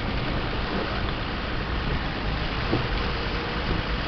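Steady running noise of a vehicle driving, heard from on board: a low engine and road rumble under an even hiss.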